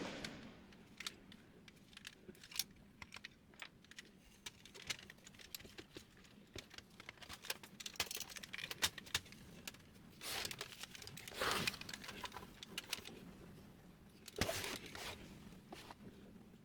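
Small parts of a laser printer being handled during disassembly: scattered light clicks and clinks, with a few short, louder rustling rubs past the middle and near the end.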